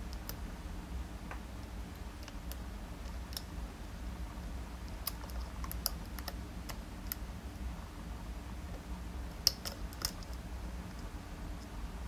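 Small, scattered metallic clicks and ticks of a flag pick and tension tool working the pins inside a DOM iX dimple lock cylinder, with a couple of sharper clicks about three quarters of the way in.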